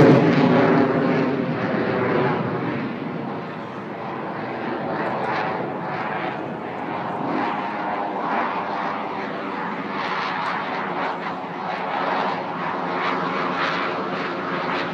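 Blue Angels F/A-18 Hornet jets flying low overhead. The jet noise is loudest at the start, falls away over the first few seconds, then carries on at a steady level.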